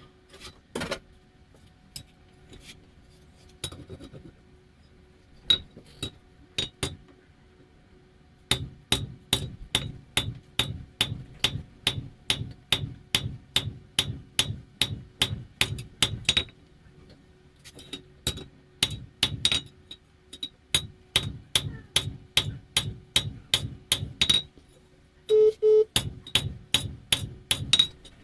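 Hand hammer striking hot coil-spring steel on an anvil while forging: a few scattered blows at first, then steady runs of about three blows a second broken by short pauses, with a faint ring from the anvil. A short, louder clatter comes near the end.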